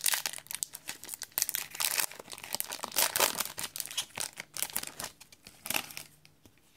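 Foil wrapper of a Yu-Gi-Oh! booster pack being torn open by hand, a dense run of crinkling and crackling that dies down near the end.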